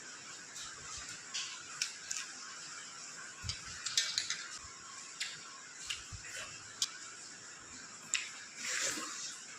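Close-up eating sounds: irregular crisp clicks and crunches of chewing, with a few soft low thuds and a longer crackly bite near the end.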